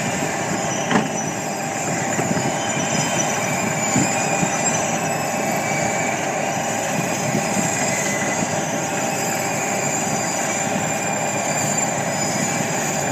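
Tesmec 1075BW trencher running under way: a steady, loud machine noise with several steady high whines over it, and a sharp knock about a second in.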